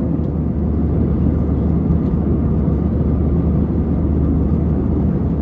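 Inside the cabin of an Airbus A320-214: a steady, low drone of its CFM56 jet engines and the airflow, with a faint steady hum.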